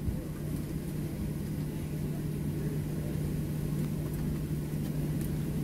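Cabin noise of a Boeing 737-700 taxiing: the engines at low taxi thrust and the cabin air make a steady low drone with a constant hum.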